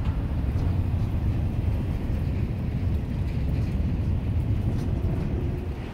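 Freight train of boxcars rolling past, a steady low rumble that eases a little just before the end.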